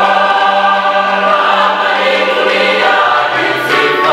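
Church choir of many voices singing together in harmony, with a low held note that drops lower about three seconds in.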